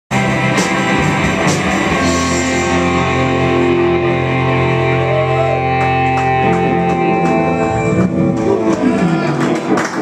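Live rock band playing electric guitars, bass guitar and drums, with long held chords through the middle.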